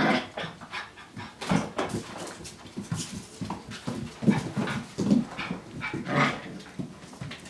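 Puppies playing and wrestling: short, irregular bursts of small puppy noises mixed with scuffling and knocks.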